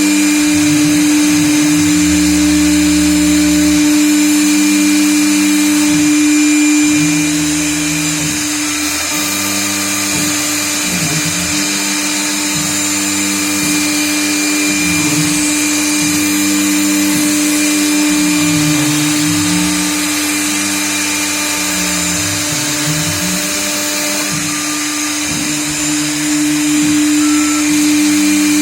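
CNC router cutting letters: a steady machine hum, with lower tones that step and glide up and down in pitch as the machine moves along the cut.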